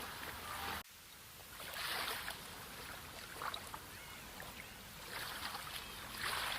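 Sea waves washing in, several swells of surf rising and falling over the steady wash of the water. The sound cuts out for an instant about a second in, then resumes.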